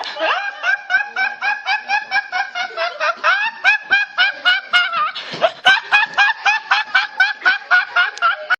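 A high-pitched snickering laugh: a fast, even run of short 'heh' syllables, about four or five a second, that stops abruptly at the end.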